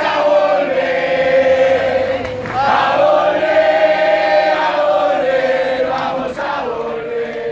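A group of people singing a chant together, holding long notes with short breaks between phrases.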